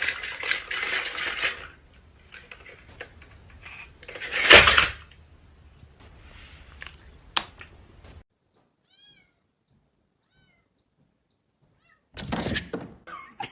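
A cat's sounds, in several short noisy bursts, the loudest about halfway through, then a few seconds of near silence before another burst near the end.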